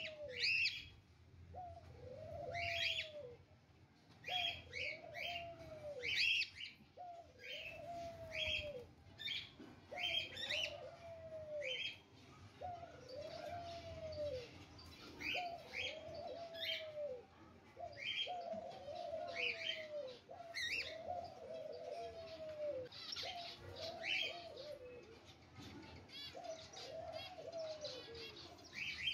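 Repeated bird calls: a low, arching call about once a second, with clusters of short, high chirps in between.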